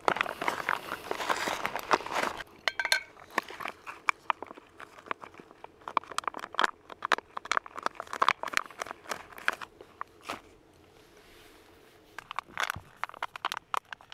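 Rustling and crinkling handling noises, a dense run of crackles at first, then scattered clicks with a brief lull about ten seconds in.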